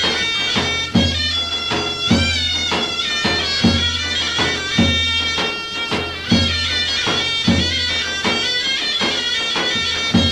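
Traditional Greek folk dance music: a shrill reed pipe plays the tune over a steady low drone, with drum strokes about once a second.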